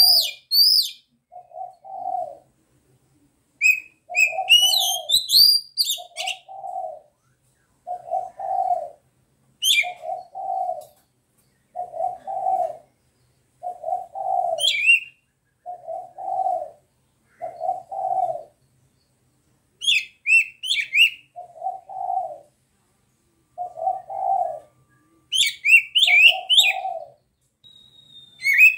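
Oriental magpie-robin (kacer) singing in short bursts of high, quickly gliding whistled notes every few seconds, over a dove cooing steadily about once a second.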